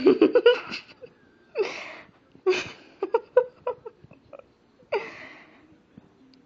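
Stifled, breathy laughter close to the microphone, in several separate bursts, with a run of short clicks between them.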